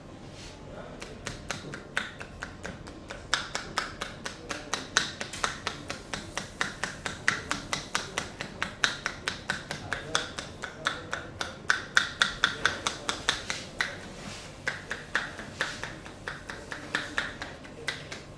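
Barber's hands rapidly tapping and slapping in a percussion massage, a steady run of sharp smacks about four to five a second that starts about a second in and eases off near the end.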